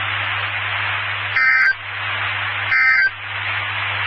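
NOAA Weather Radio SAME end-of-message signal: three short digital data bursts about one and a third seconds apart, the last near the end, marking the end of the warning broadcast. Between the bursts there is steady radio-channel hiss with a low hum, from the repeater's radio link.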